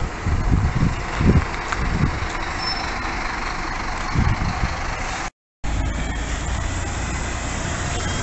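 Bus on the road: engine and road noise, with wind buffeting the microphone in the first few seconds. The sound cuts out briefly about five seconds in and resumes as steadier engine running.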